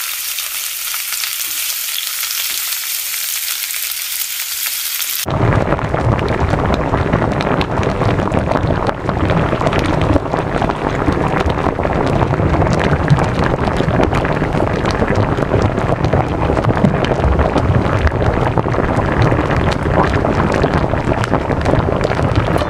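Chicken thighs sizzling in a frying pan, a steady high hiss. About five seconds in it cuts to a louder, deeper crackling and bubbling as the chicken simmers in its pan liquid and cream sauce.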